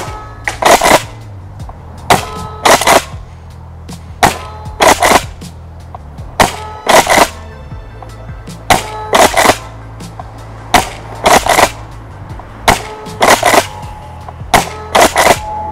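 Tokyo Marui Kel-Tec KSG gas airsoft pump shotgun fired over and over, about one shot every two seconds. Each shot comes as a pair of sharp clacks about half a second apart: the gas shot and the pump being worked.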